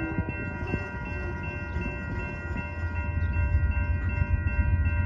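Railroad crossing's electronic bell (an early GS E-Bell fitted with a WCH sound card) ringing steadily at about two to three strikes a second. The low rumble of the approaching train grows louder in the second half.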